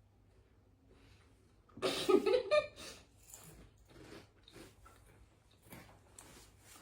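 Someone biting into and chewing a gooey caramel Kit Kat, faint and irregular, with a brief louder burst of noise about two seconds in.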